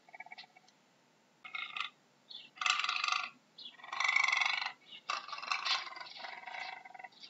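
Puma calling: a run of about four short pitched calls with brief gaps between them, the last one drawn out longest.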